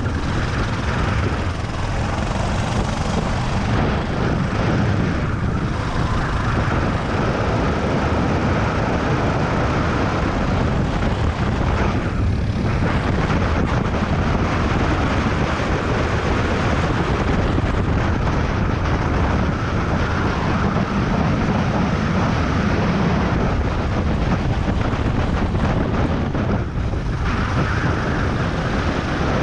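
Racing go-kart engine running hard at speed, heard onboard with wind on the microphone. The sound dips briefly a few times, around corners.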